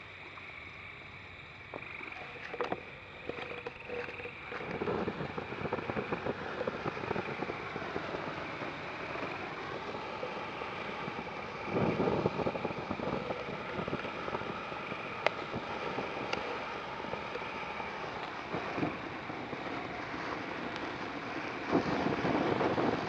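Dominator 'Molten Madness' 200-gram fountain firework burning. A quieter fizz for the first few seconds gives way to a steady rushing hiss of spraying sparks, with scattered sharp pops and crackles. It surges louder about twelve seconds in and again near the end.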